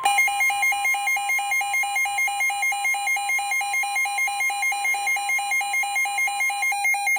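A weather alert radio's alarm beeping rapidly, several beeps a second, sounding for a severe thunderstorm warning. The steady NOAA Weather Radio warning tone carries on faintly beneath it and stops shortly before the beeping ends.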